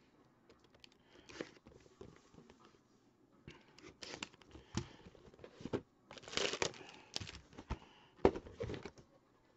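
A cardboard trading-card box being slit open with a small blade and unpacked: scraping, tearing and clicking of cardboard and packaging, loudest about six to seven seconds in.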